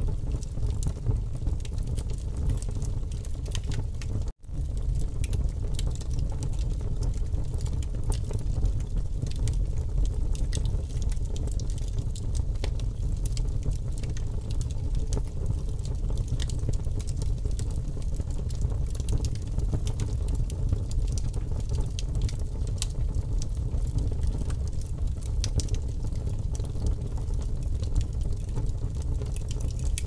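Fire burning, a steady low rumble with constant crackling of small sharp snaps. The sound drops out for an instant about four seconds in.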